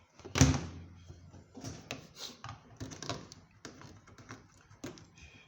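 A heavy knock about half a second in, then a run of irregular clicks and light knocks: hands handling and working on the parts of a washing machine being taken apart.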